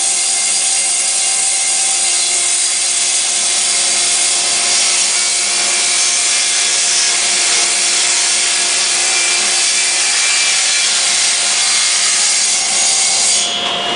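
Table saw running as a shelf is pushed through the blade on a panel-cutter sled, trimming about a sixteenth of an inch off one edge; a loud, steady cutting noise that eases near the end.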